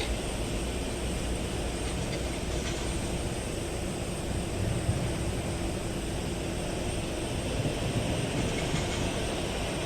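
Steady rumble of jet airliner engines heard across the airport, with no distinct events.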